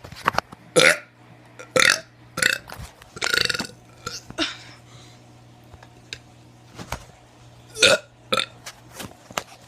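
A teenager burping over and over: a string of short, loud burps, about five close together, then a pause of a couple of seconds, then two more near the end.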